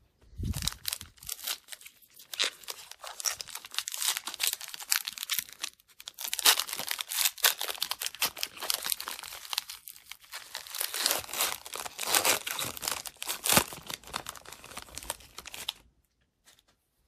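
Foil wrapper of a hockey trading-card pack being torn open and crinkled by hand: a dense crackle that dips briefly about six and eleven seconds in and stops about a second before the end.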